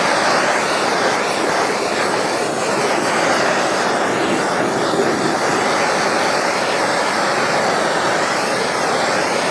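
Handheld blowtorch burning with a loud, steady rushing hiss as its flame chars the barbecue sauce on a rack of smoked spare ribs.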